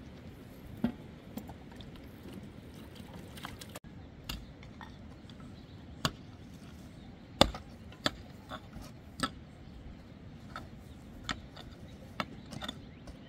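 Hand tools chopping: a dozen or so sharp, irregular blows striking wood and earth, a half second to a second and a half apart, the loudest about halfway through. Before that, a few light clinks of metal pots and dishes.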